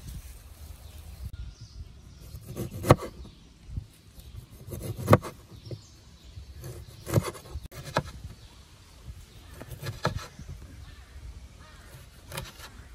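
A series of about six sharp knocks, roughly two seconds apart, over a low background rumble.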